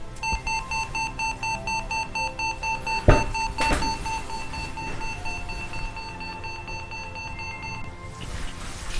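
An electronic beeper sounding a fast, even string of buzzy beeps, about three a second, that stops near the end, over background music. Two sharp knocks come about three seconds in.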